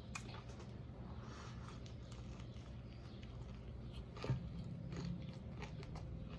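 A person chewing and biting into a fried whiting sandwich on hard Italian bread, close to the microphone, with a sharper mouth click about four seconds in.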